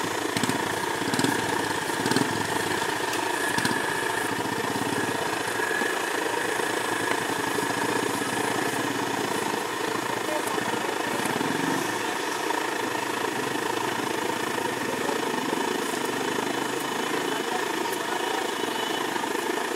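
Steady mechanical drone of an idling engine, with a constant hum over street background noise.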